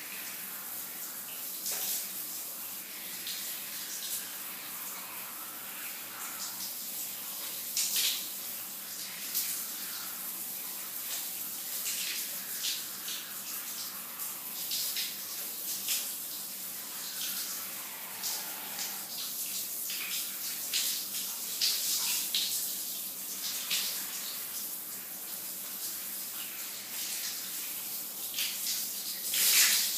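Shower running: a steady hiss of spray with irregular splashes and spatters, the loudest splash near the end.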